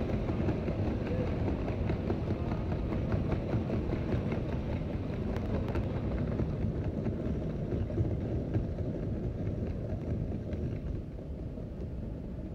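Low, steady rumble of walking through a large tiled airport terminal, with faint scattered clicks; it eases off a little near the end.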